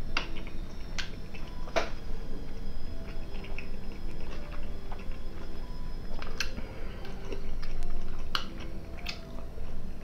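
Close-up chewing of a mouthful of meat cutlet, with wet mouth sounds and a handful of sharp clicks scattered through it.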